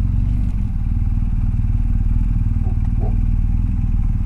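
Motorcycle engine idling steadily with the bike at a standstill.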